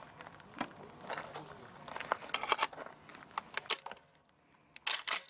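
Shells for a 20-gauge Balıklı Makarov S20 shotgun being handled and loaded into its magazine: a run of light clicks and rattles, then a short, louder clatter near the end.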